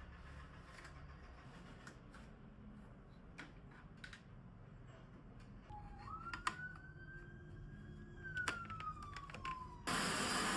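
Light clicks and handling knocks, then a thin whine that rises, holds and slides down. Near the end a vacuum cleaner switches on with a sudden loud, steady rush of air.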